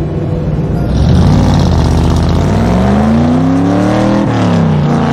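Car engine accelerating hard, its pitch climbing, then dropping suddenly about four seconds in as it shifts up a gear and starts climbing again.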